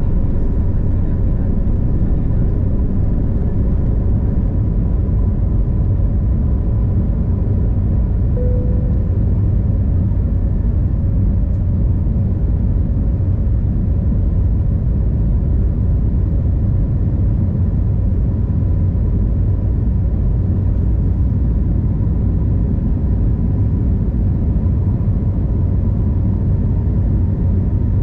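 Airbus A321neo cabin noise: a steady low rumble of engines and airflow with a faint constant hum over it.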